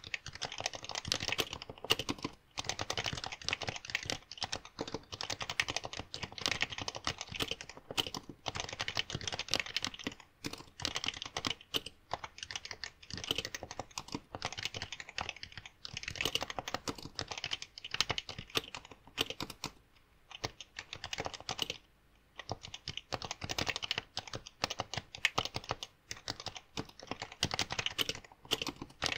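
Fast continuous typing on a Happy Hacking Keyboard with Topre switches, a dense run of key clicks broken by a few short pauses.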